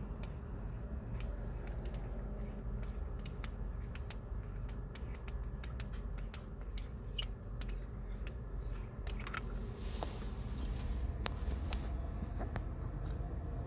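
Small metallic clicks and rattles, two or three a second and uneven, from the gear shift knob's hidden stash compartment being worked, over a low steady rumble; the clicks thin out after about nine seconds.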